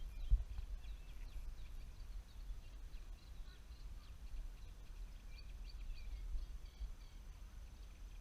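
Small birds singing, many short high chirps and trills, over a low rumble. A single thump about a third of a second in.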